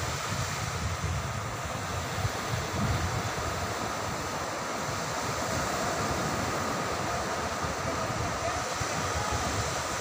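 Sea surf breaking and washing up the beach in a steady hiss, with wind on the microphone, heaviest in the first few seconds.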